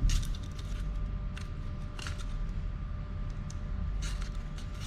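Scattered light clicks and scrapes of small bicycle pedal parts being handled, with the most distinct ones near the start, about two seconds in and about four seconds in, over a steady low hum.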